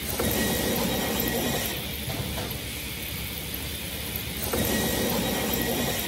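Wood-Mizer EA3000 edger running, its ribbed infeed press rolls pulling boards through. The sound swells suddenly twice, for about a second and a half each time, as a board passes through the rolls.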